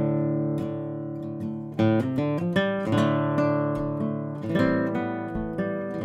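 Background music on acoustic guitar: plucked notes and strummed chords, each ringing out and fading before the next.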